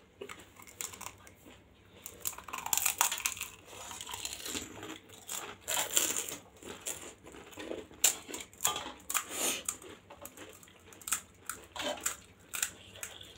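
Close-miked eating of pani puri: crisp fried puri shells cracking and crunching between the teeth, with wet chewing of the spiced water filling, in irregular bursts.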